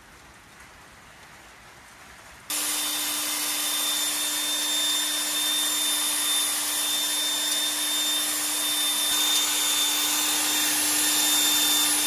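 An electric drill running at a steady speed, spinning a hone in the cylinder liners of a Massey Ferguson 165 tractor engine to hone out the bores. It starts abruptly about two and a half seconds in, holds one steady whine, and stops suddenly at the end.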